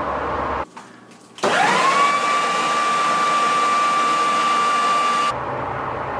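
Electric leaf blower switched on to blow lint out of a clogged dryer vent hose: its motor whine rises quickly to a steady high pitch over rushing air, then cuts off abruptly near the end.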